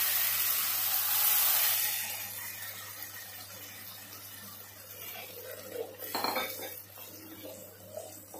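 Tomato purée sizzling in hot oil in a clay pot, the hiss dying down after about two seconds. Then a wooden spoon stirring and knocking against the clay pot a few times.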